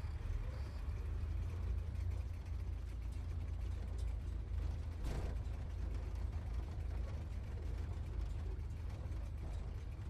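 Sports car driving, its engine giving a steady low rumble, with a brief knock about five seconds in.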